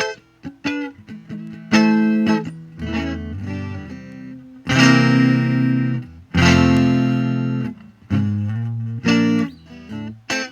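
Twelve-string electric guitar, a Rickenbacker 360/12-style copy, played on its own in strummed chords: several short chords, two long ringing chords about five and six and a half seconds in, then more short chords.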